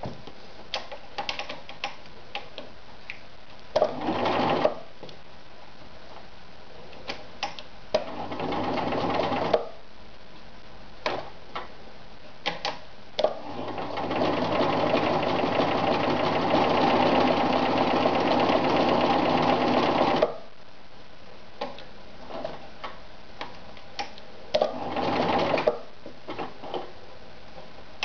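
Riccar 1300 sewing machine stitching through denim in four runs: two short bursts, a longer steady run of about seven seconds in the middle, and another short burst near the end. Scattered small clicks fall between the runs.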